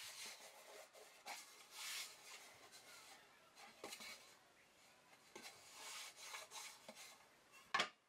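Faint handling of a glued-up walnut board: hands rubbing over it and sliding it on a wooden workbench. A sharp knock near the end as the board is set down on the bench.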